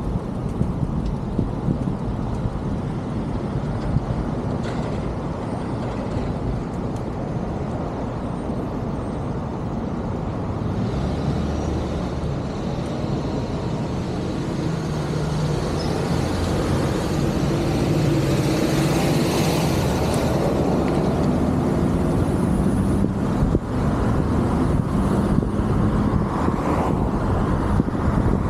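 Road and traffic noise from a car driving along a busy city street: steady tyre and engine rumble. A heavier vehicle's engine grows louder partway through, and a brief hiss comes about two-thirds of the way in.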